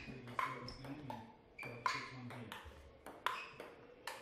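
Table tennis rally: a ping-pong ball clicking sharply off paddles and the table, about eight hits spaced roughly half a second to a second apart, each with a brief ring.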